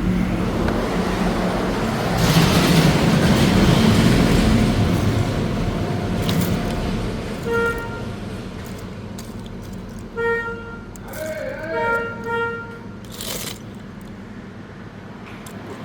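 A vehicle engine running loud for the first few seconds, then fading, followed by several short car-horn toots in road traffic.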